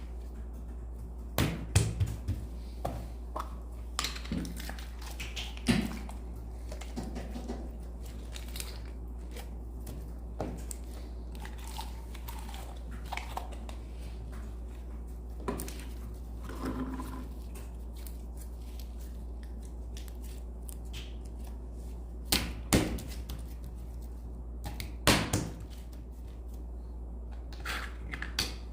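Slime being pressed, poked and stretched by hand: scattered squishes, pops and crackles, bunched near the start and again a little over twenty seconds in, over a steady low hum.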